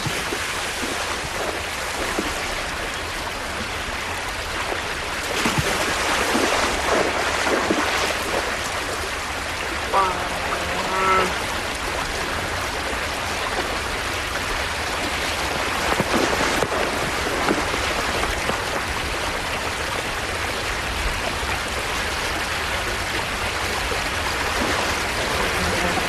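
Rushing river water making a steady, even rush, with occasional splashes. About ten seconds in there is a short pitched animal call.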